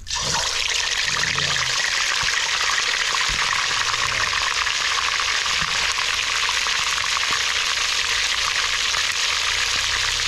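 Hot oil sizzling and crackling hard in a wok as paste-coated paddy-field rats are dropped in to fry; the sizzle starts all at once and holds steady.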